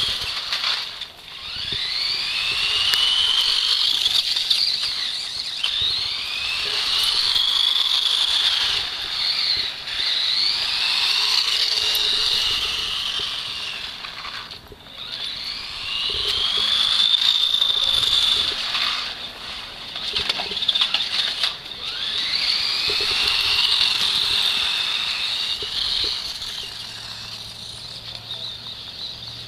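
Small electric motor of a radio-controlled toy car whining, rising in pitch as it speeds up and falling away, in about half a dozen bursts of running.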